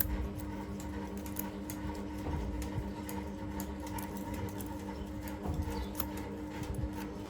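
A steady machine hum in a workshop, with scattered light clicks and taps on top. The hum cuts off suddenly at the end.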